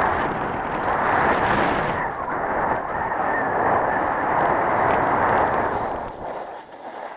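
Rushing wind buffeting the camera's microphone and skis sliding over packed snow on a fast downhill run. The noise eases off about six seconds in as the skier slows.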